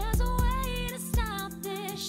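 Background music: a song with a steady drum beat and a wavering sung melody line.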